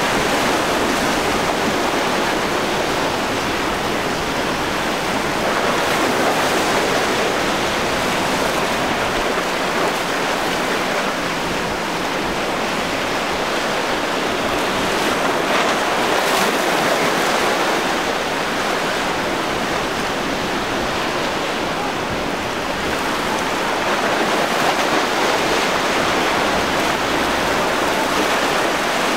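Surf and breaking waves rushing steadily, the noise swelling and easing every few seconds.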